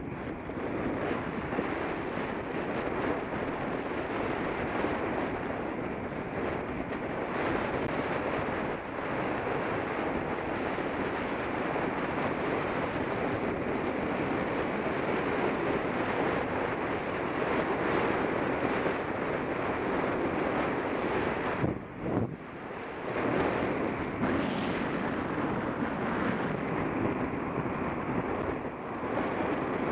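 Steady wind rushing over the microphone of a Contour Roam action camera as it travels along a paved path, mixed with rolling road noise. The noise drops briefly about two-thirds of the way through.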